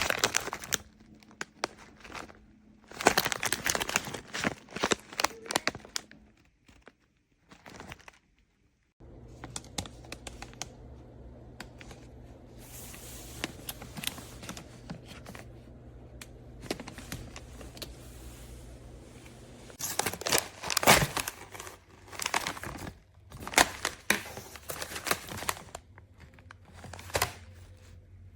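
Plastic crinkling in irregular bursts as plastic is handled, with a steady low hum underneath from about nine seconds in.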